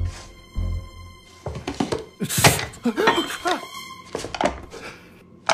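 Film soundtrack with background music: two dull, heavy thuds about half a second apart at the start, then a busier stretch of knocks and sliding pitched sounds.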